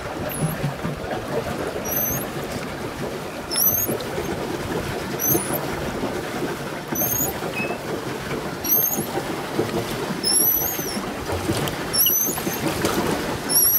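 Pedal boat under way on a lake, its paddle wheel churning the water steadily, with a short high squeak repeating about every one and a half to two seconds.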